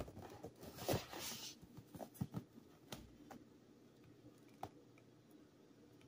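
Hands handling and turning a cardboard product box: rustling and scraping of the cardboard in the first second and a half, then a few scattered light taps and clicks.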